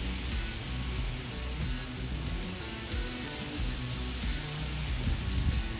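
Background music with a bass line, over the steady hiss of chicken skewers sizzling on a hot cast iron grill grate.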